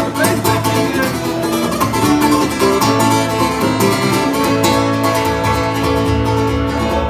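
Acoustic guitar strummed in a steady country rhythm, an instrumental passage with no singing.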